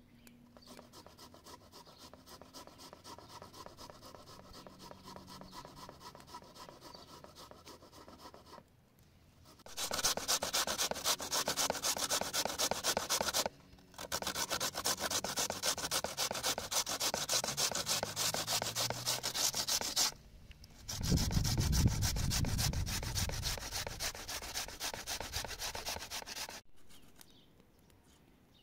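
A peeled potato being grated on a metal hand grater in fast, steady rasping strokes. Quieter at first, then louder from about ten seconds in, with two short breaks, before it stops near the end.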